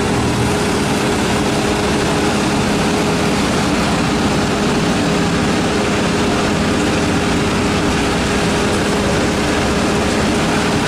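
A motor vehicle's engine running at a steady pitch under a loud, even rush of noise, with no change in speed or load.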